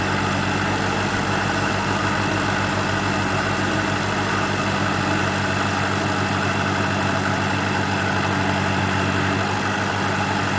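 Perkins four-cylinder diesel engine of an Ebro 460 tractor running steadily at a constant speed.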